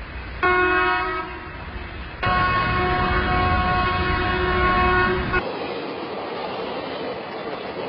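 Indian Railways train horn sounding a short blast about half a second in, then a long blast of about three seconds. After the long blast the horn stops and the steady noise of a running train carries on.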